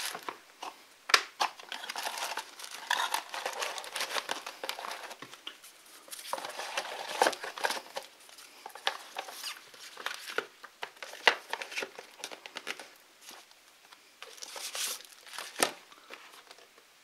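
Unboxing packaging being handled: a clear plastic bag crinkling and a cardboard box and its insert rustling and tapping, in irregular bursts with sharp clicks.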